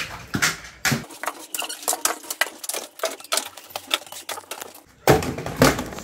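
Small plastic toys clattering as they are handled: a quick, irregular string of light clicks and knocks, with a louder, fuller handling noise about five seconds in.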